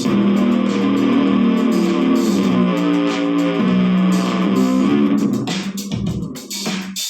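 Electric bass guitar played through a Zoom GM-200 multi-effects unit on a punk-funk patch. A sustained riff runs until about five and a half seconds in, then gives way to short, choppy notes with gaps between them.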